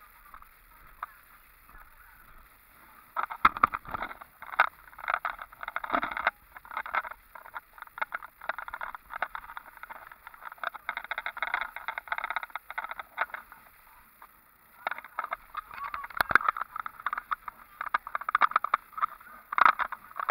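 Rattling and clattering from a vehicle driving over a rough gravel road, in irregular bursts that start about three seconds in, ease off briefly past the middle and pick up again near the end.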